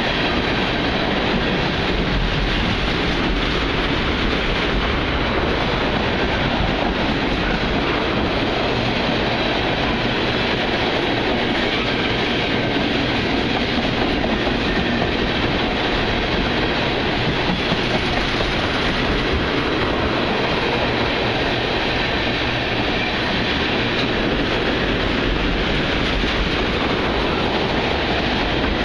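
Union Pacific freight train of oil tank cars rolling past, a steady, unbroken noise of wheels on rail.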